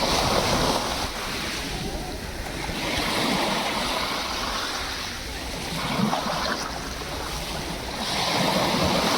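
Sea waves washing onto the shore, the rush of water swelling and fading every few seconds.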